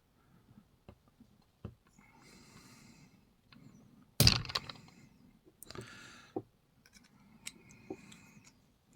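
Small metallic clicks and clinks of a challenge lock and lock-picking tools being handled, with one loud sharp metal clack a little over four seconds in.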